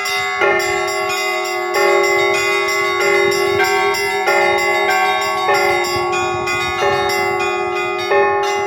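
Church bells ringing in a peal. A large bell strikes about every second and a quarter, its low hum carrying between strokes, while smaller bells ring quickly in between.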